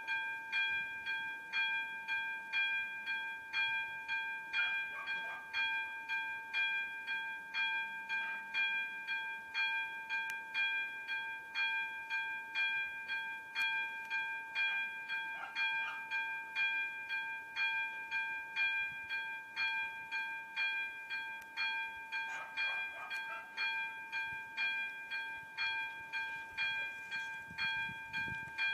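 Electronic warning bell ("umíráček") of an AŽD 97 railway level crossing, striking over and over in a steady rhythm a little faster than one strike a second, each strike ringing on. It signals that the crossing is closed for an approaching train.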